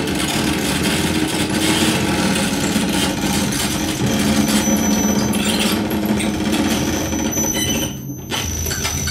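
Dense, noisy free-improvised electronic texture from turntable and synthesizer over a steady low drone. Near the end the noise cuts out for a split second, leaving a thin, steady high tone.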